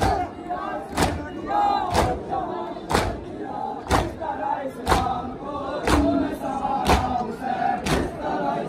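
A crowd of Shia mourners performing matam, striking their chests with their hands in unison about once a second, each strike a sharp slap. Men's voices chant and shout between the strikes.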